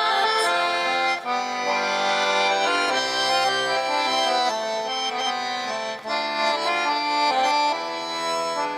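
Accordion playing a folk-song melody over held chords in an instrumental passage between sung lines.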